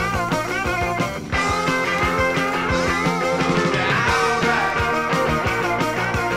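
1979 power-pop rock recording playing: a full band with electric guitar over a steady beat, with a brief break about a second in.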